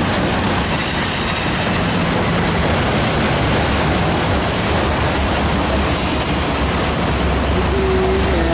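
Union Pacific autorack freight train passing close by: a steady loud rumble and rattle of the rail cars rolling over the track. Near the end a deeper low drone builds as the train's diesel locomotives come alongside.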